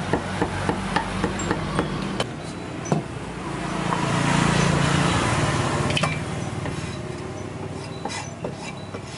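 Knife chopping on a wooden cutting board, about four quick chops a second, stopping about two seconds in after a last couple of single knocks. Then a broad rush of noise swells and fades over a few seconds.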